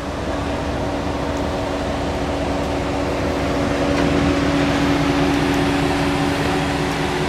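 A car engine running steadily: a constant hum with a few steady tones over an even rushing noise.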